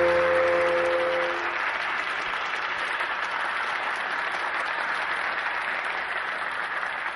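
A held music chord dies away in the first second or two, under steady audience applause that slowly tapers off.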